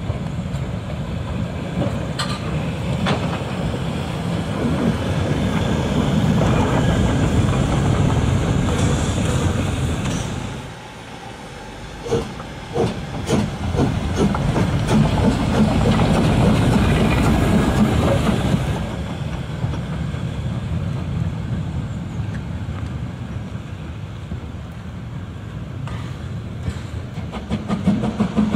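HSB 2-10-2 steam tank locomotive moving slowly, hissing steam from its cylinders, with wheels clicking over rail joints. A run of sharp clicks comes about halfway through, before the loudest stretch.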